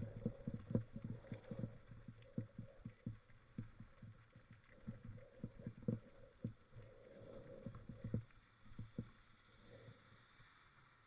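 Irregular dull knocks and thumps from a mountain bike rolling over rough ground, picked up through an action camera's mount. They come thickly at first and thin out toward the end.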